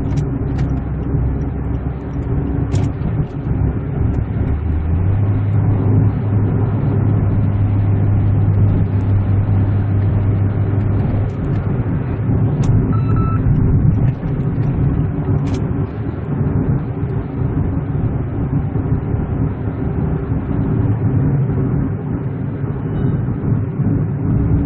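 Steady engine and road noise inside the cabin of a 2013 Kia Ray LPG light car pulling up a hill, with a low hum that steadies for several seconds partway through and a few faint clicks.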